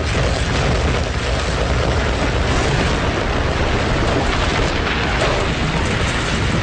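Loud, continuous rumbling roar with a heavy low end, holding steady for several seconds: a building collapsing.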